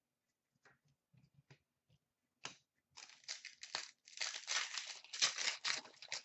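Foil trading-card pack wrapper being torn open and crinkled: a crackling that starts about two and a half seconds in and is loudest near the end. Before it, a few soft clicks of cards being handled.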